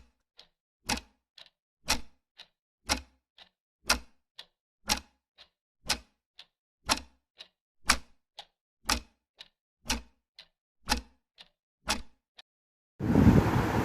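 Even ticking in a tick-tock pattern: a sharp tick about once a second, each followed half a second later by a fainter one. Near the end the ticking stops and a ceiling fan's steady rush of moving air starts.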